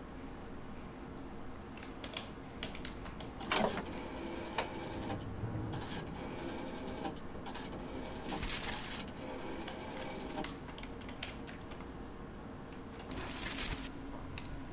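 Typing on a laptop keyboard: key clicks in irregular runs over a faint steady hum. Twice, about halfway through and near the end, a short hiss rises above them.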